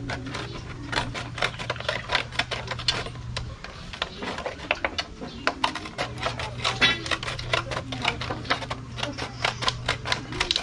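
Scissors snipping through a large clear plastic bottle in quick, irregular clicks as the plastic is trimmed down. A low steady hum runs underneath, stopping about three and a half seconds in and returning about six seconds in.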